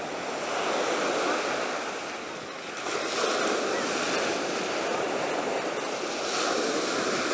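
Ocean surf washing onto a sandy beach: a steady rush that eases about two seconds in and swells again a second later.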